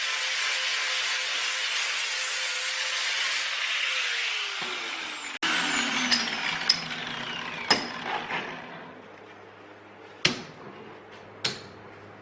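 Electric grinder running steadily, then switched off about four seconds in, its whine falling as it spins down. Several sharp knocks follow at uneven intervals.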